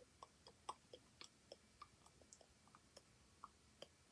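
Faint, irregular computer mouse clicks, about three a second, while files are searched.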